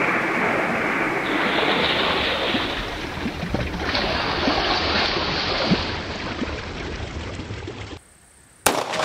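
A long, dense rushing and splashing noise of water, then a short quieter gap and a single sharp 9mm pistol shot near the end, followed by a brief echo.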